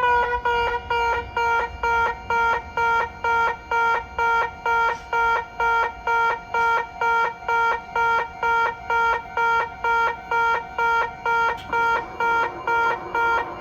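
Electronic level crossing warning bell in a railway yard, ringing in a steady repeating ding-ding just under two strikes a second. Its pitch slides down slightly as it settles in the first second.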